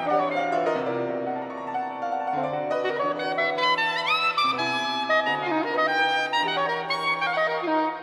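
Soprano saxophone, violin and piano playing contemporary chamber music together, with held notes over lower sustained tones; about four seconds in, one line slides steeply upward in pitch.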